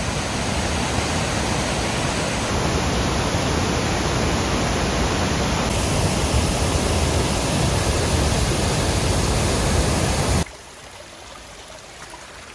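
A waterfall running heavy with snowmelt: a loud, steady rush of water. It cuts off suddenly about ten seconds in, leaving a much quieter steady hiss.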